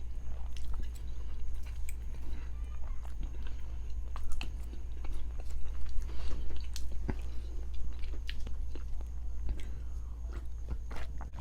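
A person chewing and biting food close to the microphone, with many small irregular wet mouth clicks, over a steady low hum.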